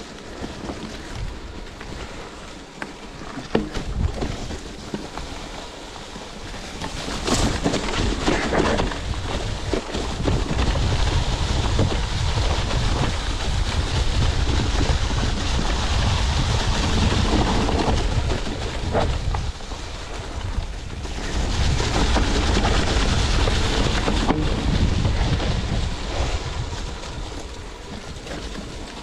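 Wind buffeting the microphone of a chest-mounted action camera on a fast mountain-bike descent, a steady rushing rumble, with the tyres rolling over dry leaf litter and a few sharp knocks from the bike. It grows louder about eight seconds in and eases off near the end.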